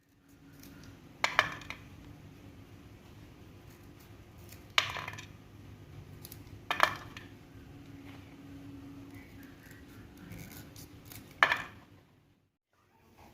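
Kitchen clatter: four sharp clinks of utensils against cookware, a few seconds apart, each ringing briefly, over a steady low hum.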